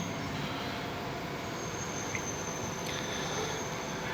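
Steady background rumble and hiss with no speech, and a faint thin high whine coming in about a second and a half in.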